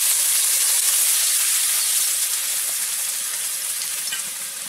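Boiled lentils (dal) poured into hot oil tempered with cumin, dry chilli, bay leaf and cooked tomato, sizzling hard at first and slowly dying down.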